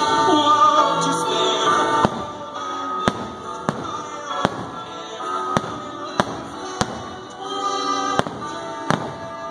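Distant aerial firework shells bursting in a string of about ten sharp bangs, spaced half a second to a second apart, over the fireworks show's accompanying music.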